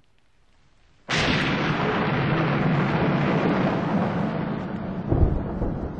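A thunderstorm sound effect: a sudden clap of thunder about a second in that rolls on over heavy rain, with a second low rumble of thunder near the end.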